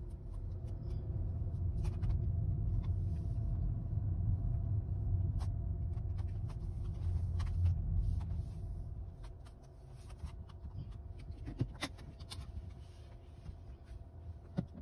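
Car moving slowly, heard from inside the cabin: a low engine and tyre rumble that swells in the middle and eases off about two-thirds of the way through, with a few light clicks.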